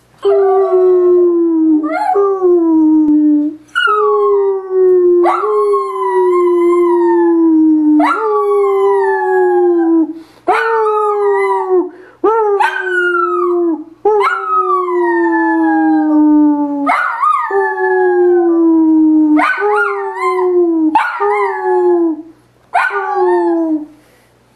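Long-haired dachshund howling: a long series of drawn-out howls, each jumping up sharply and then sliding slowly down in pitch, with short breaks for breath between them.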